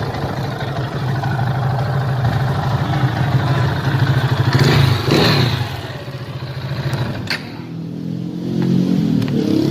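KTM 390's single-cylinder four-stroke engine running, with a brief louder rush of revs about halfway. It then drops back to a quieter idle, with a sharp click a little past two-thirds of the way through, and picks up again near the end.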